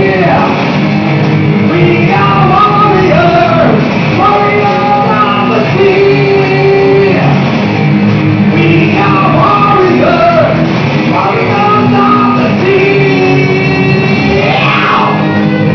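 Heavy metal band rehearsal: electric guitars playing over a keyboard part that stands in for drums, with sung and shouted vocals. Held notes ring out, and a pitch sweeps steeply downward near the end.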